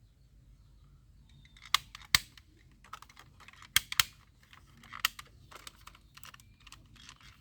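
Plastic toy guns being handled. There are loud sharp clicks and clacks, mostly in pairs a fraction of a second apart, with lighter tapping and rustling in between.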